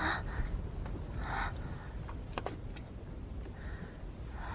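A young woman gasping and breathing hard, a few sharp breaths a second or more apart, over a low steady rumble.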